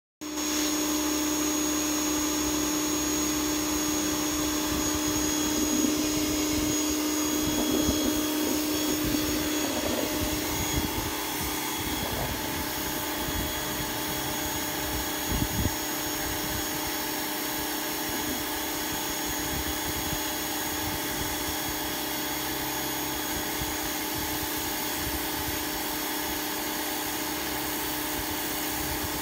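Pressure washer running steadily, its water jet hissing as it sprays the wooden slats of a bench. A steady motor hum runs under the spray and eases off slightly after about ten seconds.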